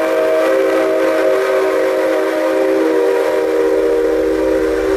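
Steam locomotive whistle, the C57's, blowing one long steady chord of several notes, as the signal that opens the turntable show.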